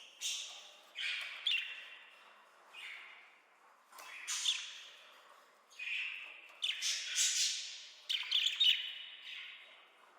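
Pet budgerigars calling in a run of short bursts, roughly one a second.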